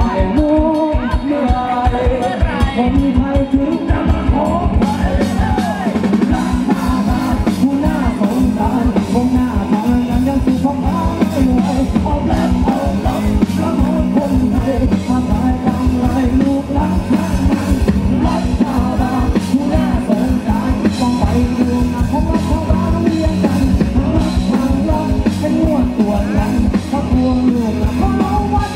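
Live rock band playing loud through a stage PA: a drum kit keeping a steady, busy beat under bass and a melodic line.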